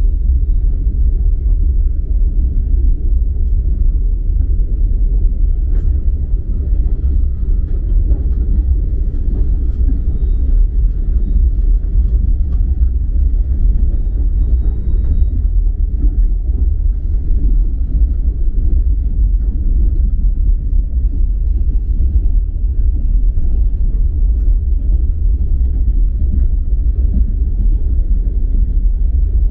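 Steady low rumble of a moving passenger train heard from inside the carriage: the running noise of wheels on rails, even and unbroken.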